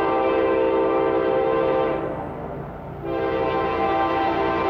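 Approaching CSX freight locomotive sounding its air horn, a chord of several steady notes: one long blast that ends about two seconds in, then another starting a second later. Under it runs the low rumble of the train.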